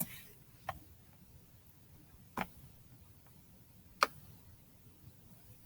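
Three separate clicks on a computer, about a second and a half apart, in a quiet room.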